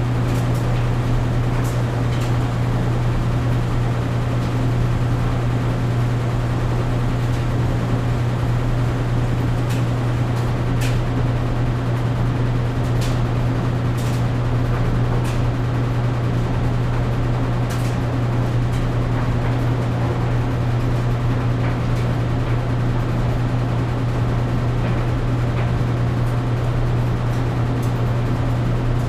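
Clothes dryer running with a steady low hum and rumble, and a few light clicks at irregular moments.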